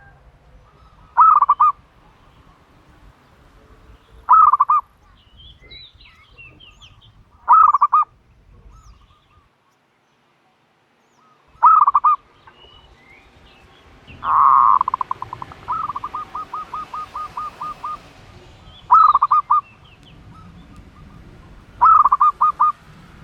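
A dove calling: short, loud, rolling coos repeated every few seconds. About halfway through, one longer call trails off into a run of about a dozen quick pulses.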